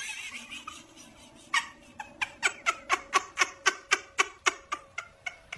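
A small animal's rapid series of short, squeaky calls, about five a second, starting about a second and a half in.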